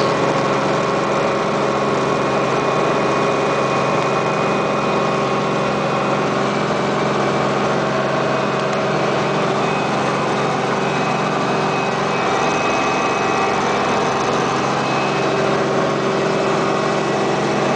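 Helicopter engine and rotor running steadily: an even mechanical drone with a steady high whine over it.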